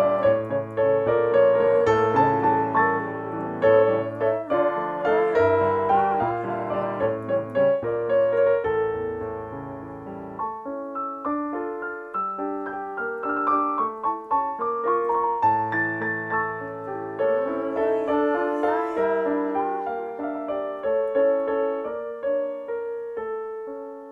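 Piano-sound keyboard playing a lively nigun melody over chords and a bass line, trailing off near the end.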